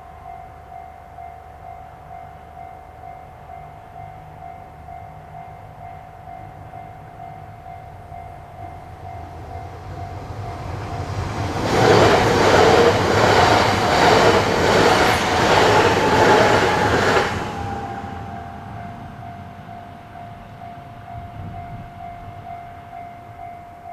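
Japanese level-crossing warning bell ringing on and on in an even repeating pattern. About halfway through, a train on the Ou Main Line rushes past the crossing for about five seconds, drowning the bell, which then carries on ringing as the train fades away.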